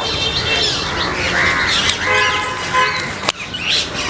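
Birds chirping and calling, with several short pitched calls overlapping. There is a sharp click right at the start and another about three seconds in.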